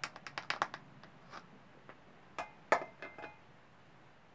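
Orange plastic funnel pulled from the oil filler neck of a pit-bike engine and set down by a glass measuring jug. A quick rattle of light clicks comes first, then a couple of sharper clinks with a brief ring about two and a half seconds in.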